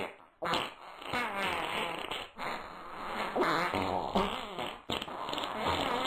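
A long, drawn-out fart, wavering up and down in pitch and breaking off briefly three times.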